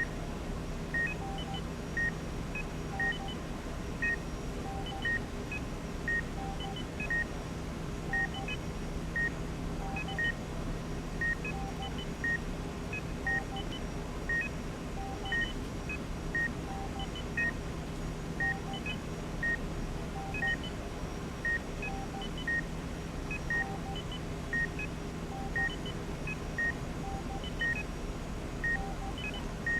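Electronic beep repeating at a steady pace of about one a second, with fainter paired beeps at a lower and a higher pitch about every two seconds, over a steady low hum.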